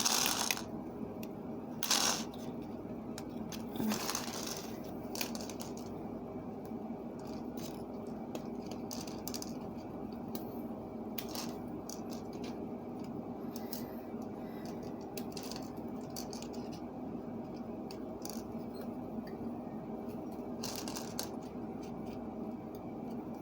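Scattered small clicks and taps of wire and pliers against a clear plastic Christmas ball as gauge wire is wrapped and twisted tight, the strongest about 2 and 4 seconds in, over a steady faint hum.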